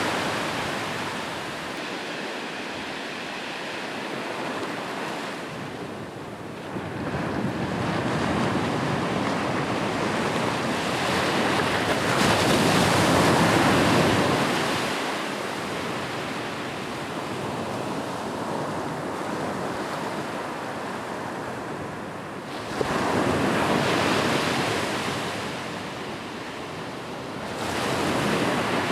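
Ocean waves breaking on a beach, the surf swelling and washing out in slow surges every five to ten seconds over a steady hiss.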